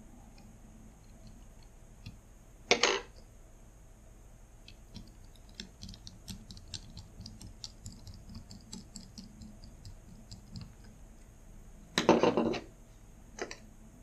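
A small precision screwdriver fastening tiny screws into a keyboard PCB: a run of light clicks and ticks from the driver tip and screw. Two louder short knocks, about three seconds in and again near the end, with a smaller one just after the second.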